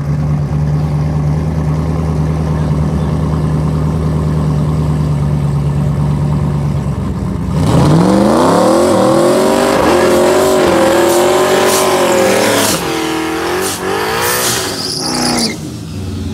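Two turbocharged drag-race V8s, a twin-turbo Coyote Mustang and a turbo 5.4 Shelby GT500, hold steady at the starting line, then launch hard about seven and a half seconds in. Engine pitch climbs steeply under full throttle, breaks off about five seconds later and climbs again, then fades as the cars pull away near the end.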